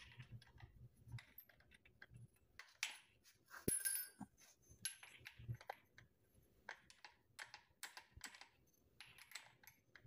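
Faint, irregular clicks and small metallic taps of a hole saw and its arbor being handled and fitted into a cordless drill's chuck, with a louder clatter about four seconds in.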